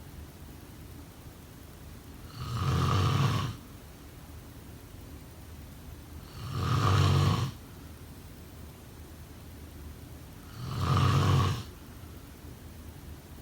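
A person snoring steadily in sleep: three snores about four seconds apart, each lasting about a second, with a quiet stretch between them.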